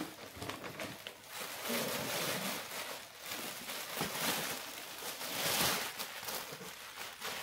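Thin plastic carrier bags and a clear plastic garment cover rustling and crinkling as they are gripped and pulled apart by hand, in uneven swells.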